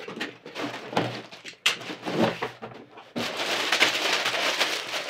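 Cardboard kit box handled and opened with knocks and a sharp crack, then plastic bags of building-block parts crinkling and rustling as they are lifted out. The crinkling starts about three seconds in and is the loudest sound.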